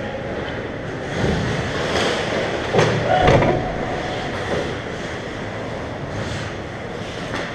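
Ice hockey rink noise: skates scraping the ice in a steady rumble, with a couple of sharp knocks from sticks or pads about three seconds in and another near the end.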